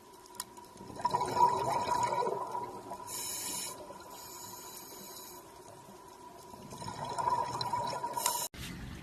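Splashing or running water, louder about a second in and again near the end, over a faint steady tone.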